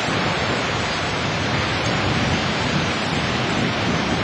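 Steady rushing noise of sea surf and wind, even and unbroken.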